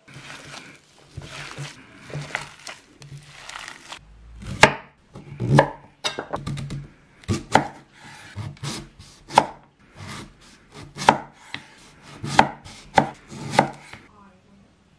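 Knife chopping on a wooden cutting board: soft, irregular strokes at first, then firmer cuts about once a second.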